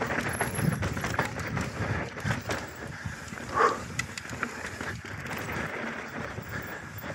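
Mountain bike descending a loose, dry dirt trail: tyres rolling and sliding on the dirt, with frequent knocks and rattles from the bike over roots and bumps. A brief louder sound stands out about halfway through.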